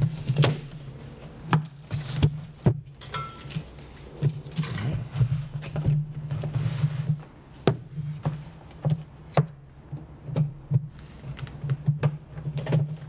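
A hard plastic storage tub being opened: scissors cut its seal, then the clear plastic lid is worked loose and lifted off, with many sharp clicks and knocks of plastic against plastic. A steady low hum runs underneath.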